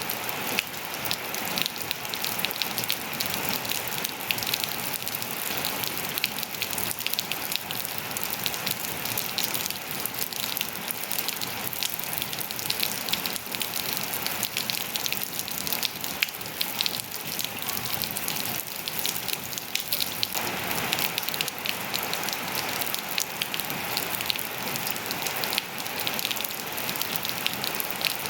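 Steady rain falling and pattering on surfaces, a dense hiss of many small drop impacts.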